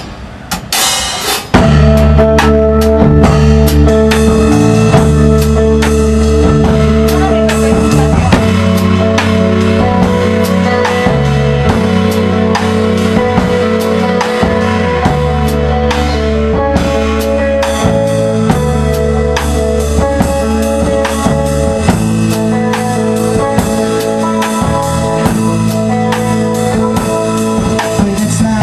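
Live rock band playing through amplifiers: drum kit, electric guitar and bass. After a few short hits, the full band comes in loud about a second and a half in and keeps a steady beat.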